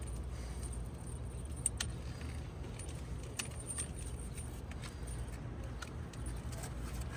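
Low steady background rumble with a few faint, light metallic clicks, heard between hammer blows during roof work.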